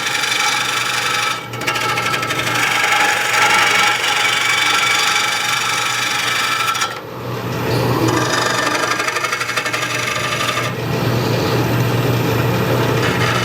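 Wood lathe running with a turning tool cutting into a green bowl blank: a rasping hiss of the cut over the steady hum of the lathe motor. The cut breaks off briefly twice, about a second and a half in and again about seven seconds in.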